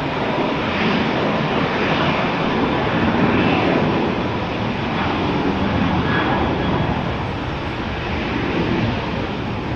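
Jet airliner engines heard as a steady, loud rush of noise with faint whining tones in it.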